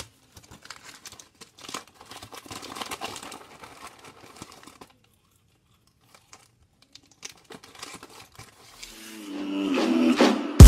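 Paper packaging crinkled and rustled in the hands for about five seconds, then mostly quiet with a few small clicks. Near the end a rising swoosh with sustained tones swells up.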